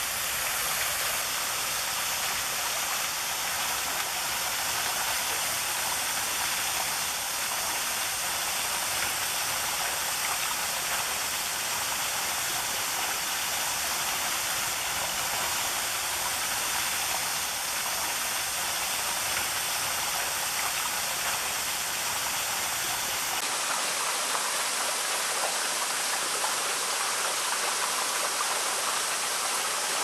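Small waterfall: thin streams of water falling and splashing down a wet rock face, making a steady hiss of falling water. About three-quarters of the way through, the sound shifts slightly and loses its low rumble.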